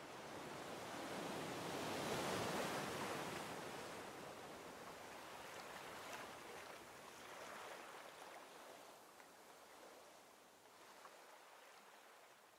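Ocean surf washing below a shoreline path: a steady rush of noise that swells about two seconds in and then slowly dies away.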